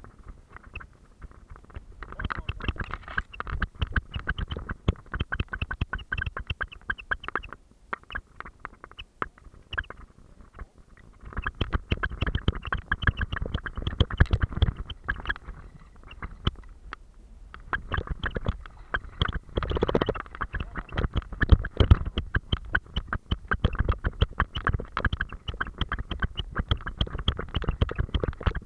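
A terrier's rapid, rhythmic panting and body movement, picked up at very close range by a camera strapped to its back, with rubbing and knocking from the mount. It goes quieter for a few seconds about eight seconds in, and again briefly around sixteen seconds.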